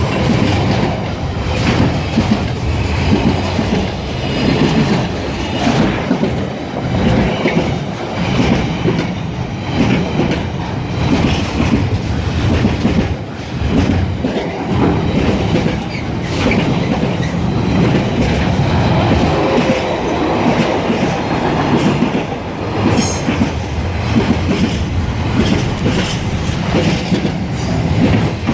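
Freight train wagons rolling past, wheels clattering over the rail joints in a continuous run of clicks.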